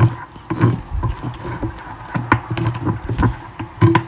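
Wooden chopsticks whisking thick crispy-fry batter in a ceramic bowl: quick, irregular taps and clicks of the sticks against the bowl, with the wet slap of the batter.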